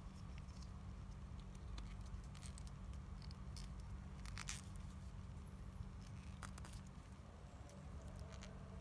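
Faint clicks and rubbing of small plastic toy-doll parts handled in the fingers as a tiny shoe is pressed onto the doll, with one sharper click about halfway through, over a low steady hum.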